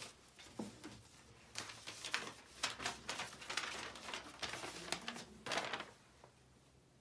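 Sheets of paper rustling and crackling as they are picked up and unfolded, in a string of short irregular crackles that die away near the end.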